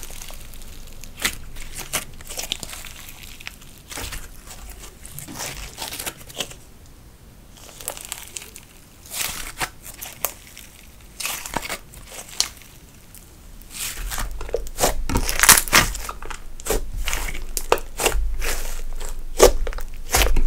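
Thick metallic gold slime being squeezed, stretched and pressed by hand, giving irregular sticky clicks and crackles. The clicks grow busier and louder about two-thirds of the way through.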